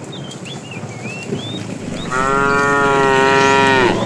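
A cow mooing once: a single steady call of about two seconds starting about halfway through, its pitch dipping as it ends.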